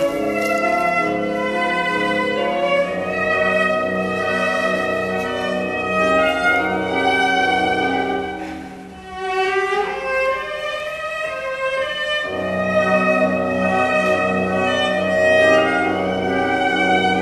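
Slow, haunting cello music with long bowed notes. It thins out and drops in level briefly about nine seconds in, then a low held note comes back in about twelve seconds in.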